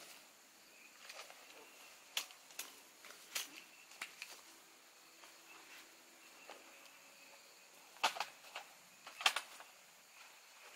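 Scattered light clicks and knocks of camping gear being handled while a dome tent is pitched, over a quiet background, with a cluster of sharper knocks about eight to nine seconds in.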